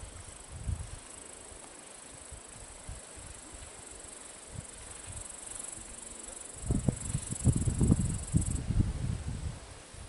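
Insects chirring in a steady high hiss that stops abruptly about eight and a half seconds in. From about seven seconds in, wind buffets the microphone in loud low gusts.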